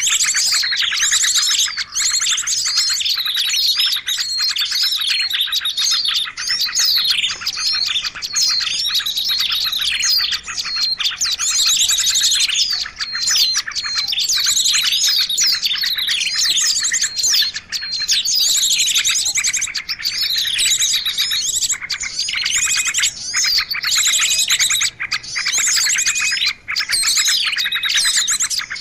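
Dense, unbroken chorus of many small songbirds chirping and trilling over one another, with rapid high twittering and quick downward-sweeping notes. This is a bird-trapping lure call mix of assorted small birds.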